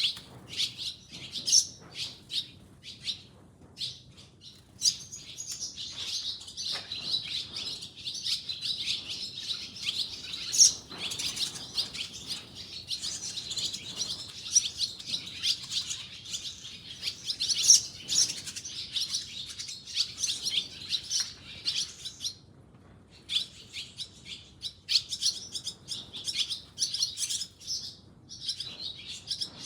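Birds chirping: a dense run of short, high calls that overlap almost without pause, sparser at first, with a brief lull about three-quarters of the way through.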